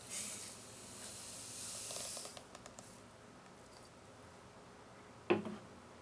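Granulated sugar poured in a stream into a stainless steel bowl of egg whites, hissing for about two seconds. A single sharp knock a little after five seconds in.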